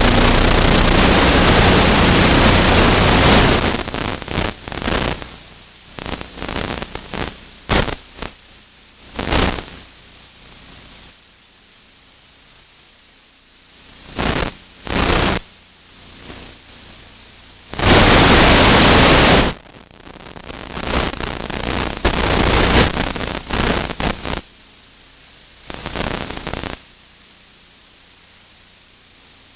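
Loud static hiss that comes and goes: steady for the first three seconds or so, then in short stretches, with the longest and loudest burst about eighteen seconds in.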